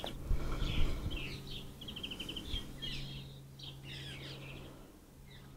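Small birds chirping and twittering, with a quick run of repeated high notes about two seconds in, over a low steady hum.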